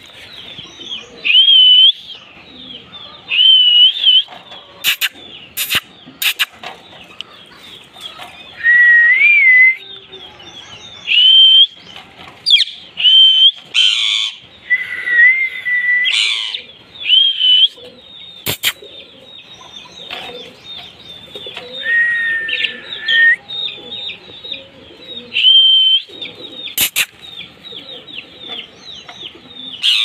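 Caged green parakeets screeching: loud short squawks every couple of seconds, a few longer whistled calls, over a constant chatter of many smaller birds. Several sharp clicks cut through.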